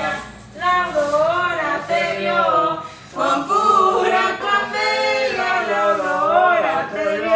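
A small group of men's and women's voices singing unaccompanied, a devotional song for the feast of the Conception of Mary, with a short breath between phrases about three seconds in.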